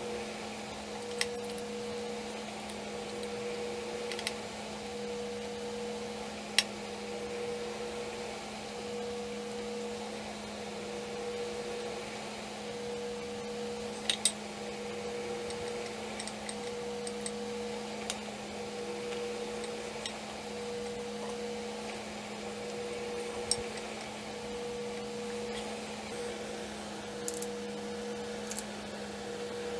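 Steady electrical room hum, with a pulsing higher tone over it. A handful of sharp, light clicks and taps are spread through, from KitchenAid mixer gearbox parts being handled on a workbench during greasing.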